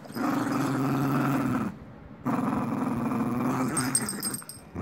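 Puppy play-growling during a tug-of-war over a rope toy: two long, rough growls with a short break between them.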